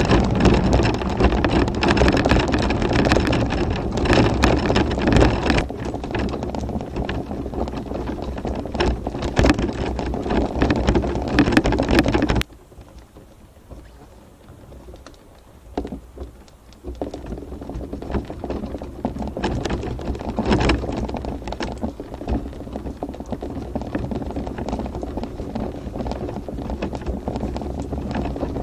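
Tramper off-road mobility scooter driving over a rough, stony chalk track: a steady rattling and crunching from the wheels and frame. It goes much quieter suddenly about twelve seconds in, then picks up again more softly a few seconds later.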